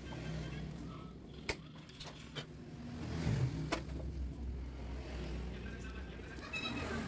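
A steady low rumble, like a vehicle passing, that swells around the middle, with a few sharp clicks on top, the kind made by handling small plastic parts.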